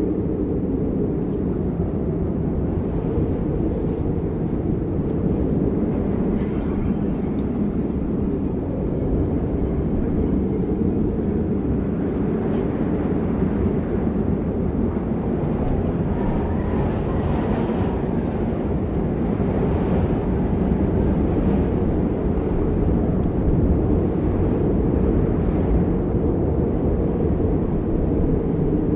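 Steady low rumble of storm wind buffeting the microphone during a snowstorm, with faint scattered ticks.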